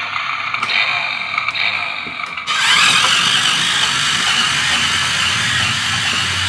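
Electric motor and plastic gearbox of a battery-powered remote-control toy Polaris RZR buggy whirring as it drives across a hardwood floor. The sound is uneven at first and turns louder and steady about two and a half seconds in.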